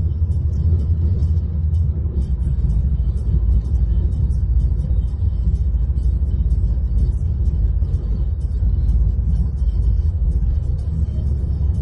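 Steady low rumble inside a car, with faint music over it.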